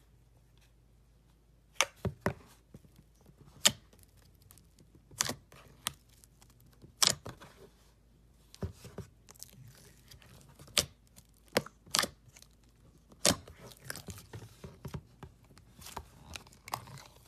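Slime being pressed and poked, giving sharp, scattered pops and clicks about a second apart, then a denser crackle in the last few seconds.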